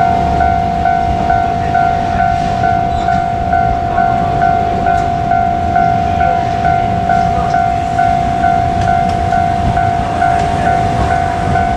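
Japanese railway level crossing warning bell ringing steadily, an even electronic two-tone ding a little over twice a second, over a low rumble.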